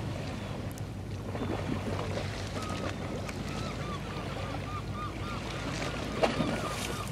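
Waterside ambience: a steady low rumble with wind on the microphone. From about three seconds in there is a run of short, repeated chirps, about three a second, and a single knock just before the end.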